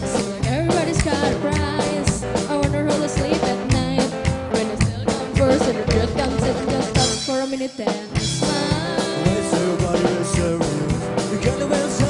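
Live band music: drum kit, upright double bass and electric guitar playing an up-tempo rock-and-roll number, with a voice singing. The bass and drums stop briefly about seven seconds in, then the band comes back in.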